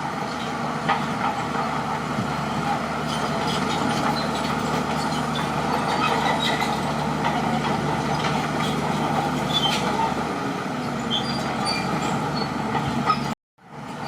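Crawler bulldozer's diesel engine running steadily under load, with scattered high squeaks and clicks from the steel tracks as it works. The sound breaks off for a moment near the end.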